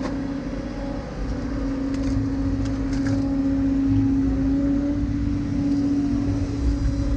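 Hydraulic excavator's diesel engine running steadily with a constant hum while it digs and dumps mud, heard from inside the cab.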